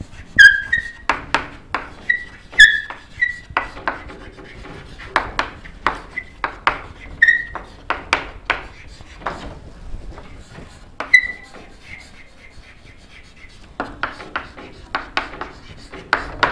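Chalk writing on a chalkboard: a quick run of short scratchy strokes and taps, with a few brief high squeaks of the chalk and a quieter lull about two thirds of the way through.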